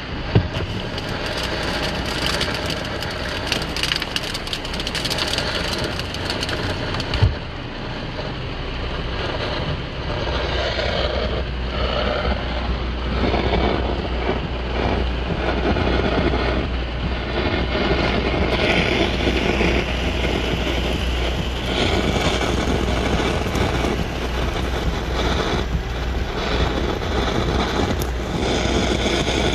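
Road and wind noise inside a moving car on a wet road in a rainstorm: a steady rush over a deep rumble, with a single thump about seven seconds in.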